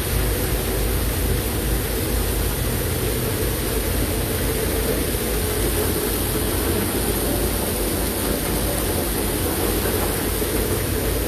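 Heavy rain pouring down steadily: an even, rushing hiss with a strong low rumble underneath.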